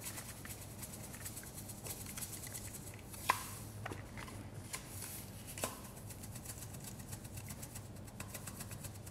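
Garlic powder shaken from a spice shaker onto a metal spoon and sprinkled over ground beef: a faint, fine rattling with two light clicks, about three and five and a half seconds in.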